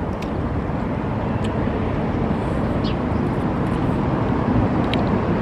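Steady rumble of road traffic, with a few faint clicks about one and a half, three and five seconds in.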